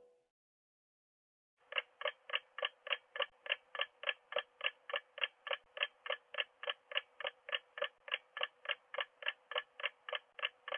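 Clock-ticking countdown sound effect: short, even ticks about three a second, starting a little under two seconds in, marking the time left to answer the puzzle.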